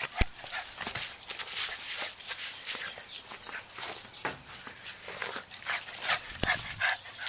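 Boston terrier making a quick, irregular run of short breathy play noises while playing with a soft frisbee, with a couple of sharp clicks.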